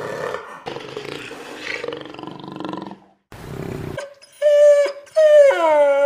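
A cheetah growling roughly for about three seconds. Then, from about four seconds in, a dog whining in long, loud, high calls that dip and rise again in pitch.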